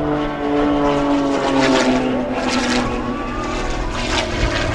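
Extra 330SC aerobatic plane's six-cylinder Lycoming engine and propeller running hard in flight, its pitch sliding down over the first couple of seconds as it passes.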